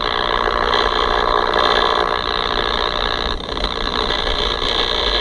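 Alinco DR-235T MkIII 220 MHz mobile transceiver's speaker giving out a loud, steady harsh noise that sounds like AM reception and breaks through no matter how the squelch is set. The owner suspects a bad part inside the radio.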